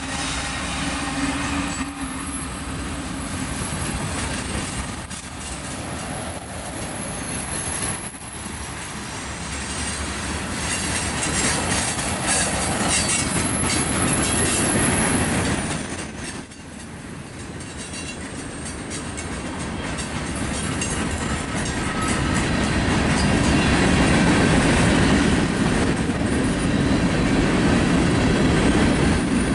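Freight cars of a mixed freight train rolling past at close range, steel wheels clattering steadily over the rail joints. A faint high wheel squeal comes in now and then, and the noise dips briefly about halfway through.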